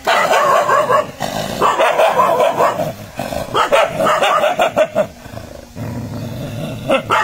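A street dog barks at its own reflection in a mirror: three quick runs of rapid barks, then a lower growl near the end.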